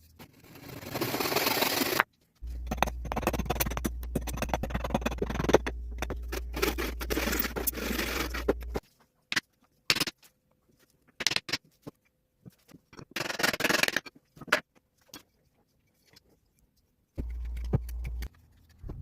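Hand tools working wood in short, abruptly cut stretches: dense scraping strokes, then scattered clicks and knocks.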